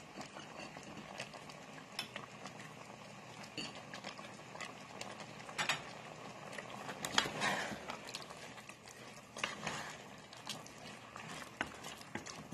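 Ground beef and vegetable stew simmering in a pot: a soft, even bubbling with scattered small pops and clicks, and a wooden spoon starting to stir near the end.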